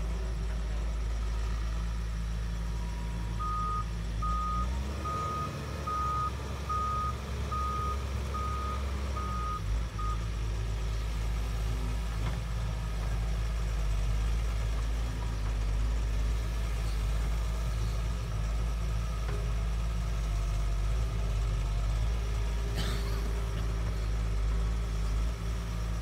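Doosan DX140W wheeled excavator's diesel engine running steadily while it works. From a few seconds in until about ten seconds in, its travel alarm beeps at an even pace, about nine beeps, and the engine note shifts as the machine moves.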